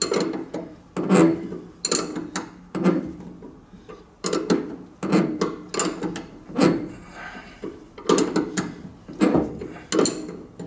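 Ring spanner turning a stiff nut up a threaded spindle in short strokes, the nut creaking and grating on the thread about once a second.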